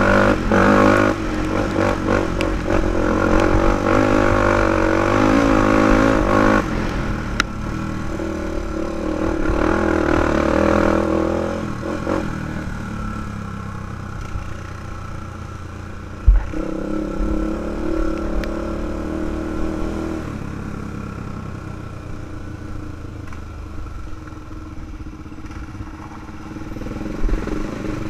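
A 2005 Honda 400EX quad's single-cylinder four-stroke engine running under throttle on a trail ride, its pitch and loudness rising and falling as the throttle opens and eases off. There is a single sharp knock about sixteen seconds in.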